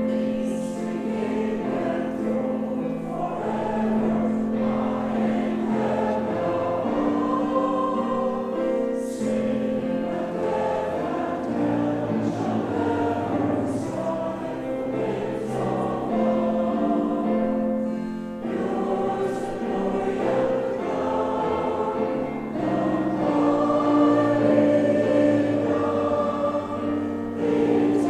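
Choir singing a hymn in sustained, chord-like phrases, starting abruptly at full volume.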